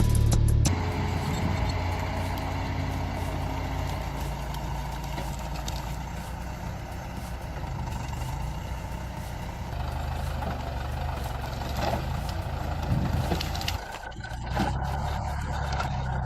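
Heavy machinery engine running steadily, with its low drone. The last of a music track ends in the first second.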